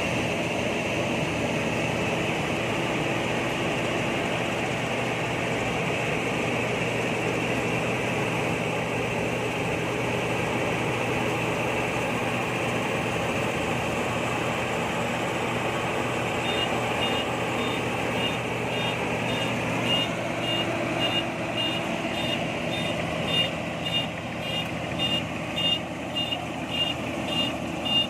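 INARI rice combine harvester's engine running steadily. Past the middle a reversing alarm starts beeping, about two beeps a second, as the machine backs up.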